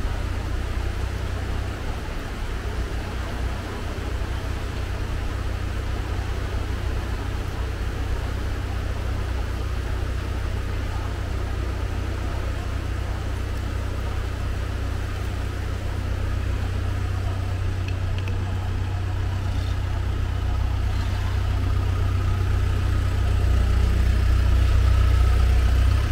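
Floodwater rushing in a swollen urban stream after heavy rain: a steady deep rushing noise that grows gradually louder in the last few seconds.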